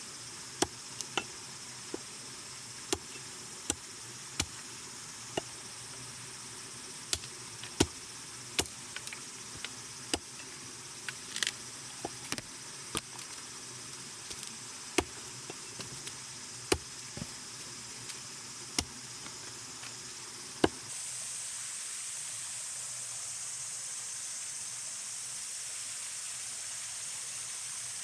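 Wood campfire crackling: sharp, irregular pops and clicks over a steady high hiss. About two-thirds of the way through, the pops stop and the hiss becomes louder and steadier.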